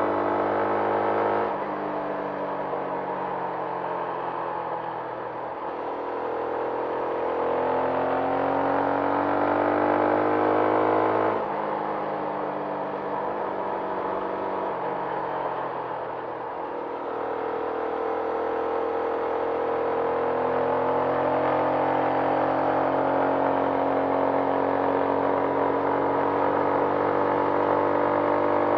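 Benelli TNT 150S motorcycle's single-cylinder engine under way, revs climbing steadily for several seconds and then dropping sharply at gear changes, over a hiss of wind and road noise.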